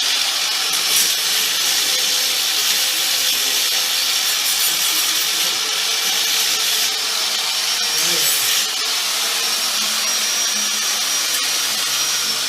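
Handheld power grinder running steadily against metal, a high whine over harsh scraping noise, taking rust off steel; the whine starts to wind down near the end.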